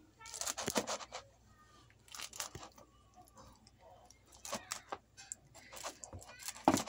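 Household kitchen knife cutting through a homemade pizza's crisp pan-cooked crust and melted cheese on a wooden chopping board: crunching, tearing strokes in several short spells.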